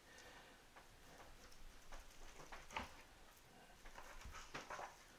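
Faint, scattered ticks and taps of a knife slicing raw beef and touching a plastic cutting board, over a quiet room hiss.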